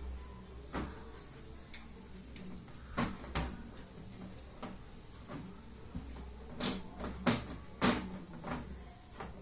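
Scattered clicks and knocks as a replacement LED TV display panel is handled and seated into the TV's frame, with three sharper knocks in quick succession about two-thirds of the way through. A low steady hum lies underneath.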